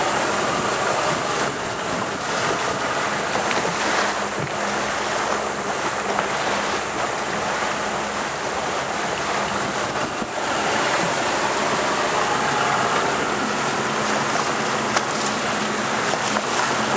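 Wind buffeting the microphone over water sloshing around a small fishing boat, a steady rushing noise.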